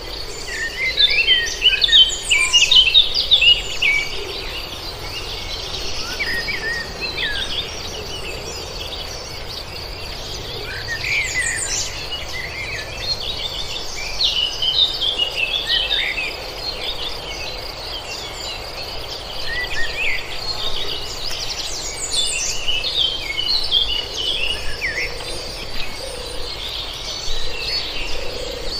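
Several birds chirping and calling in short quick bursts over a steady high-pitched insect drone; the bird calls are busiest in the first few seconds.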